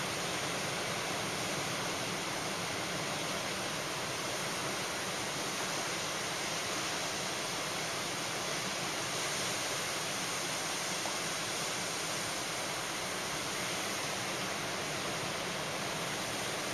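Ocean surf breaking on a beach, heard as a steady, even rush of white noise without separate wave crashes.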